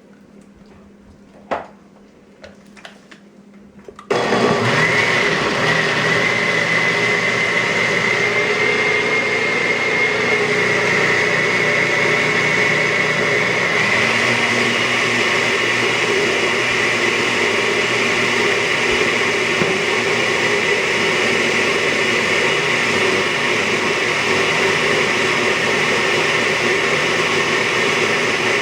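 Countertop blender running steadily at full speed, pureeing cooked dog food with added water. About four seconds in it starts suddenly, after a few light knocks, and holds a steady high whine.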